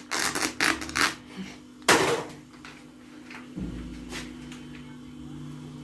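Kitchen handling sounds: a quick run of clicks and knocks, with the loudest knock about two seconds in. A little past halfway a steady low rumble starts and holds.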